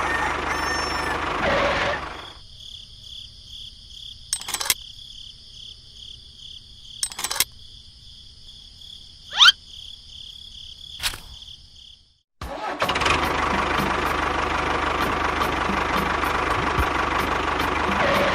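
Small electric motor of a DIY model tractor running steadily, dropping to a quieter pulsing high whine with a few sharp clicks, then cutting out and starting up loud again about twelve seconds in.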